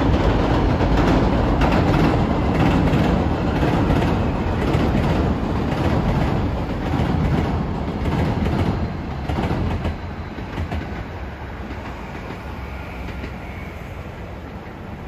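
Hankyu electric train passing over a railway bridge: a loud, dense running noise with repeated wheel clacks over the rail joints, dropping away about ten seconds in and fading.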